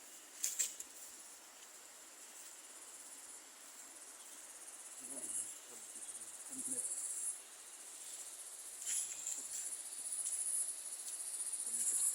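Forest insects chirring in a high-pitched, continuous buzz that swells and fades, with a short sharp click about half a second in.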